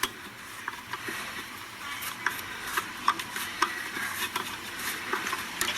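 Allen key turning and tightening a small screw in a dive scooter's propeller shaft mount: light, irregular metal clicks and ticks of tool on screw.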